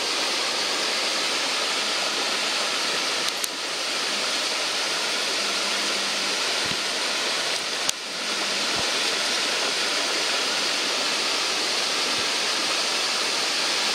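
Steady rush of water from a nearby torrent, with two brief clicks, one about a quarter of the way in and one near the middle.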